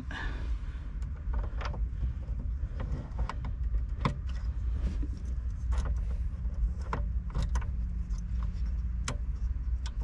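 Scattered light clicks and rattles of a replacement ignition lock cylinder being fitted and pushed into the steering column housing of a 2001 Chevy S10, over a low steady rumble.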